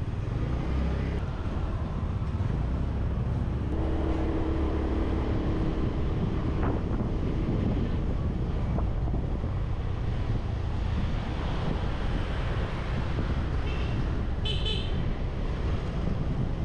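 Busy street traffic heard from a riding motorbike: engines and road noise running steadily, with a short engine drone about four seconds in and two short horn toots near the end.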